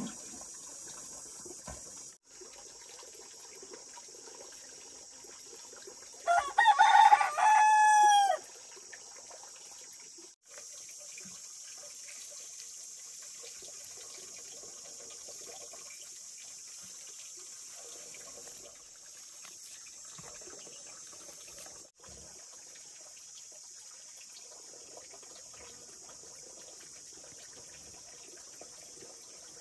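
A rooster crows once, about six seconds in, lasting about two seconds and ending on a held, falling note. Under it a steady high hiss continues, with faint rustling as hands work cooked cracked corn in a woven bamboo tray.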